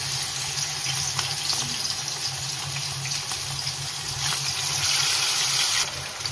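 Pomfret pieces deep-frying in hot oil: a steady sizzle that grows louder about four seconds in as another coated piece goes into the pan, then drops back. A low steady hum runs beneath.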